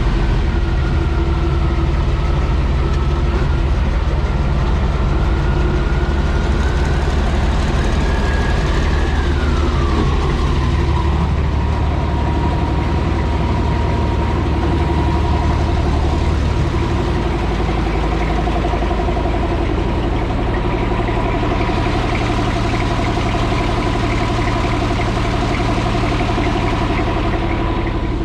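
Heavy diesel equipment engine running steadily at idle, with a whining tone that drops in pitch about nine to ten seconds in.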